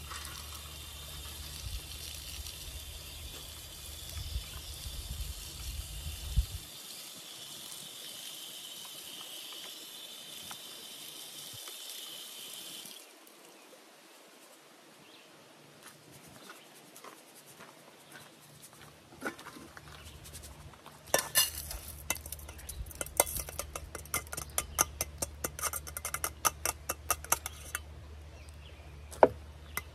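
Water running from an outdoor spigot while brown rice is rinsed in a mesh strainer, stopping about halfway through. Later comes a quick run of sharp clinks and taps from the metal strainer and rice-cooker pot being handled.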